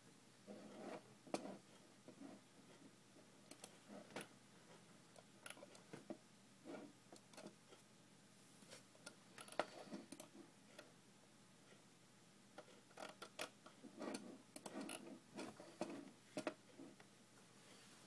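Near silence: room tone with faint, irregular small clicks and soft rustles, a few more clustered near the start and again near the end.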